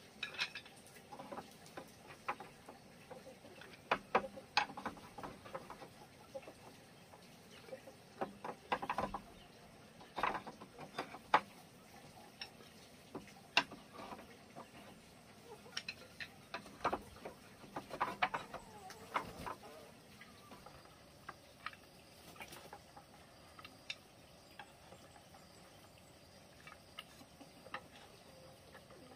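Thin bamboo slats clicking and tapping against each other and against the bamboo bed frame as they are picked up and slotted into the frame's panel: irregular light knocks, many in the first two-thirds and sparser toward the end.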